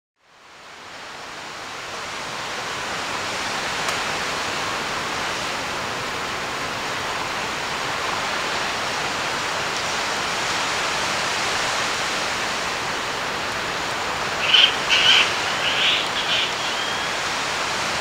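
Steady, even rushing outdoor ambience that fades in over the first two seconds, with a few short, high bird calls about three seconds before the end.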